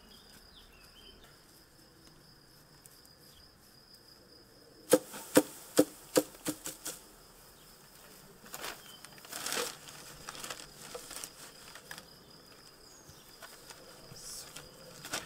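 A run of about eight sharp knocks, about five seconds in, from a wooden hive box being handled by a beekeeper, then scattered handling noises. Throughout, a faint steady buzz of a honeybee swarm.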